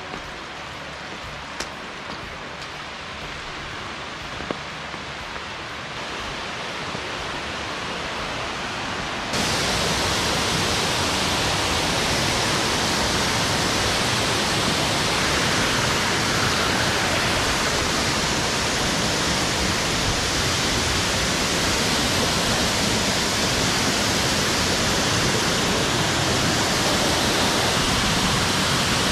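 Waterfall rushing, a steady broad hiss of falling water that grows slowly louder and then jumps suddenly louder about nine seconds in.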